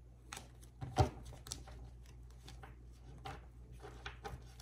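Tarot cards being handled and turned over: small rustles and clicks, with one sharper tap about a second in, over a low steady hum.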